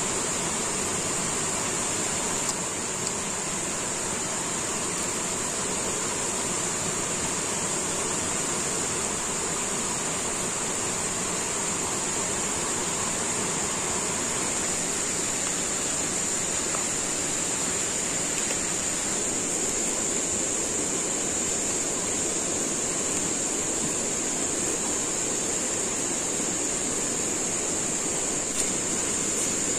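Steady forest ambience: an even rushing hiss with a continuous high-pitched insect drone over it, unchanging throughout.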